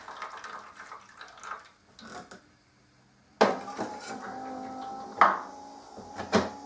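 Ceramic coffee mug lifted off the metal drip tray of a Melitta Caffeo Solo coffee machine and set down on the counter: a sudden click, then a few sharp clinks. From the first click on, the machine's motor runs with a steady whine as it returns to its basic setting.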